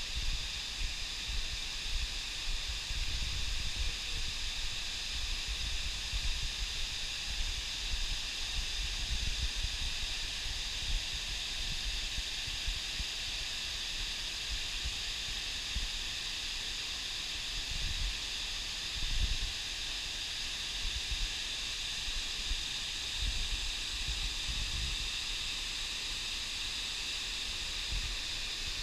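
Shiraito Falls, a broad curtain of Mount Fuji spring water spilling from gaps in a lava cliff, making a steady hiss of falling water. Low wind buffeting on the microphone comes and goes.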